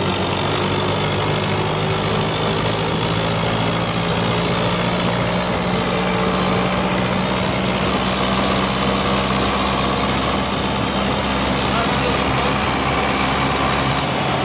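Romanian farm tractor's diesel engine running steadily under way, heard close beside its upright exhaust pipe, over road and wind noise.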